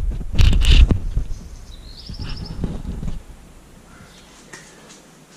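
Camera being handled and set in place: rumbling and knocks on the microphone in the first second. About two seconds in, a bird gives a short rapid trill from outside the open garage door.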